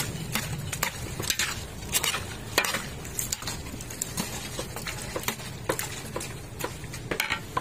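Metal spoon stirring chicken pieces sautéing in a hot pot: irregular scrapes and clinks of the spoon against the pot over a steady sizzle of frying.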